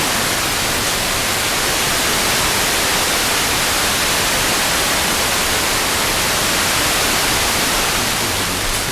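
FM radio static: steady loud hiss from an RTL-SDR receiver tuned to a weak, fading sporadic-E signal on the 65.93 MHz OIRT band, with a faint low hum under it. A voice begins to emerge faintly from the noise near the end.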